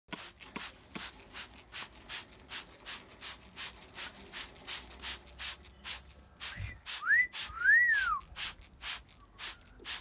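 Trigger spray bottle squirting water in quick repeated pumps, about two to three a second. About seven seconds in, two short loud whistles cut through: the first rising, the second rising then falling.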